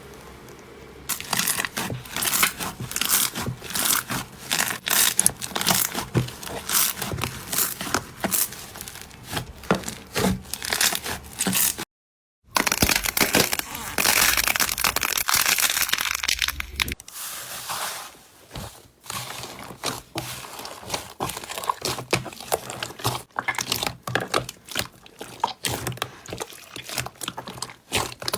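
Crunchy slime being squeezed and pressed by hand, giving a dense run of crackling, crunching clicks. It cuts out completely for a moment about twelve seconds in, then carries on.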